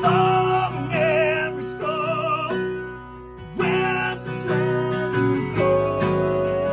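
A live band playing a song: a man singing a held, wavering vocal line over strummed acoustic guitar and a second guitar. The singing drops out and the level falls briefly about three seconds in, then the voice comes back in.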